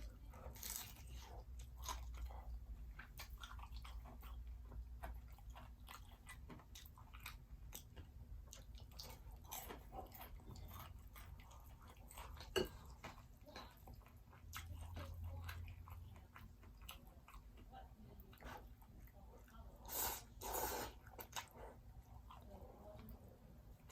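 Close-up eating sounds: biting and chewing fried seafood, with crisp crunches and small wet clicks, and one sharp click about halfway through.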